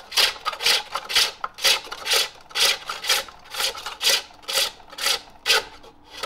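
Hand-forged pole-lathe hook tool cutting the inside of a jacaranda bowl on a pole lathe: short hissing scrapes of the cut, about two a second. The turner feels this hook is digging in a bit too much here, its edge angle more aggressive than his other hook.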